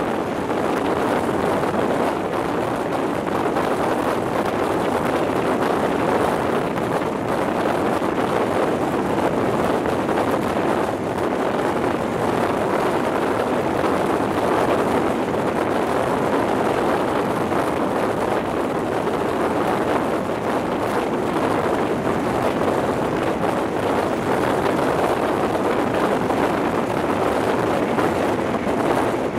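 Steady rush of wind buffeting a microphone held out of the window of an InterCity 125 High Speed Train running at speed, with the train's running noise mixed in beneath it.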